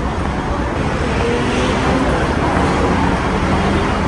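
Steady hum of city road traffic, with passers-by talking faintly.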